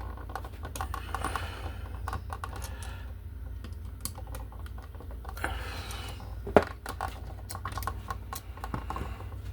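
Irregular small clicks and taps of hand work on an electrical outlet and wall box: wires, the receptacle and tools knocking against plastic and metal. There is one sharper knock about six and a half seconds in, over a steady low hum.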